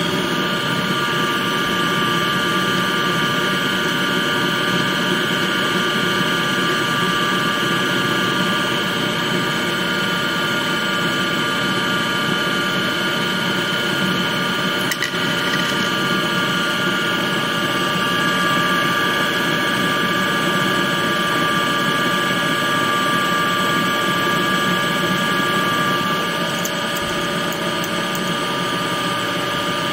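Home-built CNC lathe spindle running at steady speed: a loud, even whine with several steady tones over a constant mechanical hum.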